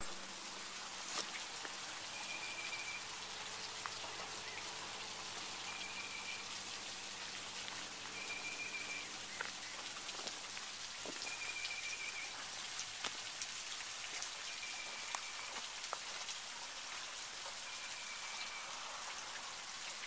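Water dripping and trickling off a limestone ledge: many small drops falling in a steady haze. A short high note repeats about every three seconds.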